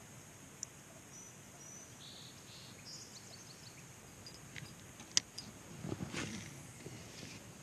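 Quiet pond-side ambience: a steady high insect-like hum with a few faint bird chirps. A few sharp clicks stand out, the loudest about five seconds in, with a brief rustle about six seconds in.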